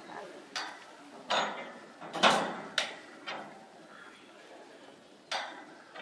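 Sharp metallic clanks, about six in as many seconds with the loudest near the middle, as a steel bar is worked against the rails and frame of a derailed 12¼-inch gauge steam locomotive to lever it back onto the track.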